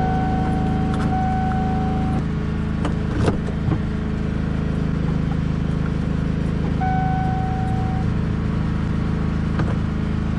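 A motor vehicle engine idling steadily, with a couple of sharp clicks about three seconds in.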